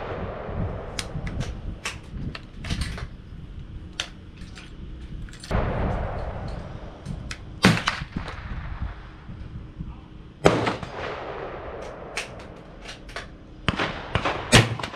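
Gunfire on a shooting range: sharp shots at irregular intervals, many faint and a few loud. The loudest, near the end, is a black-powder .577 Snider-Enfield short rifle firing.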